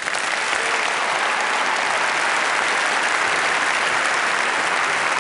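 A large theatre audience applauding, a dense and steady sound of many hands clapping.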